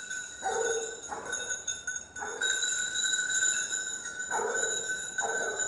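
Bells on hunting hounds ringing steadily in the brush, with four short spells of hounds baying.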